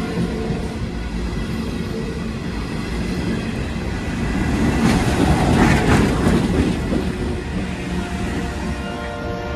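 Freight train passing at close range: loaded hopper cars clattering and rumbling over the rail joints, then diesel locomotives going by, the noise swelling about halfway through and easing off again.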